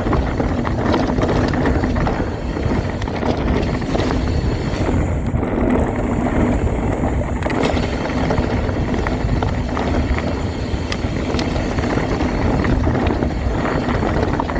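Mountain bike descending a dirt flow trail: a steady rush of wind and tyre noise, with frequent clicks and rattles from the bike.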